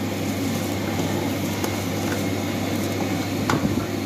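A large pot of spiced water at a rolling boil as soaked rice is tipped into it, over a steady low hum. A single sharp clink about three and a half seconds in.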